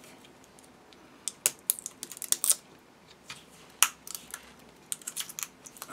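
Small plastic clicks and crackles of a clear plastic sleeve being handled and picked at by fingers on an Edding acrylic paint marker. The clicks come in scattered groups: several about two seconds in, one sharp click near four seconds, and a few more near the end.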